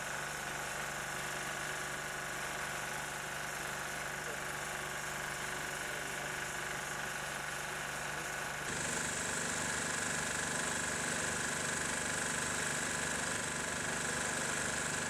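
Heavy fire-truck engine idling steadily, with a constant high-pitched whine over the low drone. About nine seconds in the mix shifts and becomes slightly louder and brighter.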